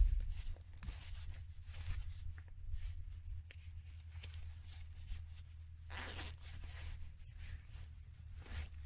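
Small fire burning in a nest of dry grass tinder around a petroleum-jelly cotton swab, crackling faintly with scattered small ticks, over a steady low rumble. A brief rustling burst comes about six seconds in.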